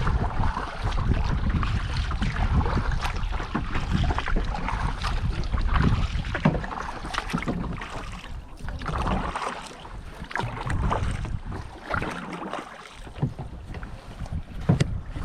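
Kayak paddling with water splashing and dripping off the paddle blades, and wind buffeting the microphone with a low rumble. The sound is loudest in the first half and eases off somewhat after about eight seconds.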